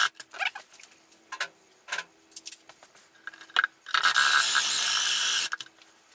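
Cordless drill running steadily for about a second and a half near the end, boring into the cabinet's plywood front panel. Before it come several sharp clicks and knocks as the tools are handled against the plywood box.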